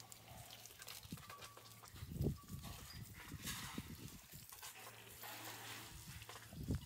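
Water buffaloes drinking at a stone water trough: faint, irregular low sounds, loudest about two seconds in and again near the end.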